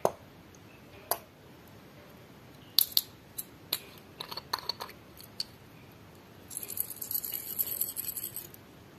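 Sharp plastic clicks and taps as a small clear bead jar is handled, then gold bugle beads rattling out of the tipped jar onto the slime for about two seconds near the end, a dense patter of many tiny hits.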